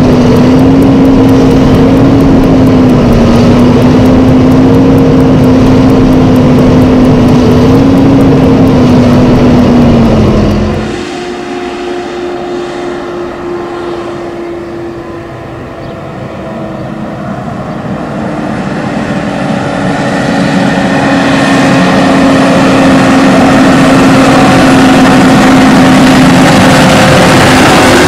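Case IH tractor's FPT NEF 6.7-litre six-cylinder engine running steadily with a strong, even hum, heard close up. About eleven seconds in it cuts to the same kind of engine heard from further off, quieter with its pitch slowly falling as the tractor goes by. It then grows loud and steady again, heard close beside the moving tractor.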